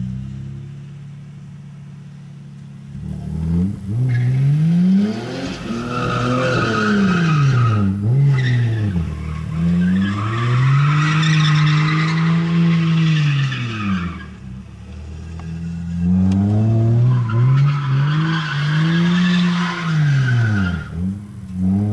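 BMW's engine revving hard, its pitch swinging up and down again and again, while the driven tyres spin and squeal in a smoky burnout. The first few seconds are quieter, at lower revs; after that the tyre screech comes in three long stretches as the revs peak.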